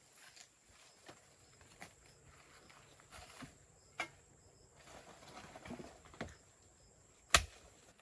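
Scattered light knocks and taps of handling or stepping, with one sharp knock near the end, over a faint rural background with small high chirps.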